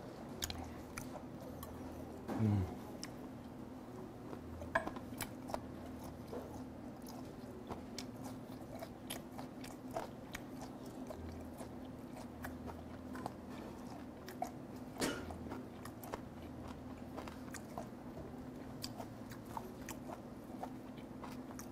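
A person chewing a mouthful of fermented skate with the mouth close to the microphone. There are many small wet clicks and crunches, typical of skate cartilage being chewed. A short hummed vocal sound comes about two seconds in.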